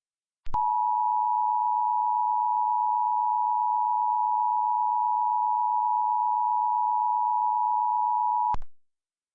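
Emergency Alert System two-tone attention signal: a steady pair of close tones just under 1 kHz, which starts about half a second in, holds for about eight seconds and then cuts off suddenly. It is the alarm that announces an emergency alert message.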